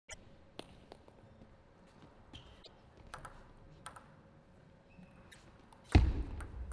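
Celluloid table tennis ball clicking sharply off bat and table a few times, spread out, then a much louder single thump with a deep low thud about six seconds in.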